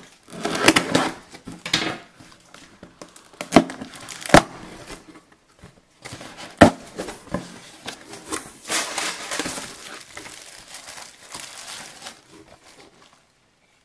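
Packing tape on a cardboard box being cut with a box cutter and torn, and the cardboard flaps pulled open with a few sharp knocks, the loudest about six and a half seconds in. Then plastic wrapping crinkling as it is handled, fading out near the end.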